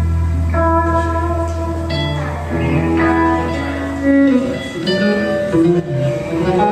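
Live band playing with electric guitars picking melodic notes over a long held low note, which gives way to a moving low line about four seconds in.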